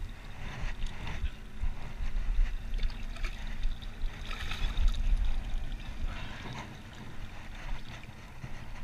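Water lapping and sloshing against a small boat's hull, with wind rumbling on the microphone.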